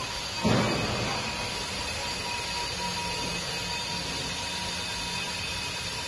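Swing-handle latch of a steel electrical control cabinet on a small concrete pump releasing with a single loud clunk about half a second in, as the door opens, over a steady mechanical hum.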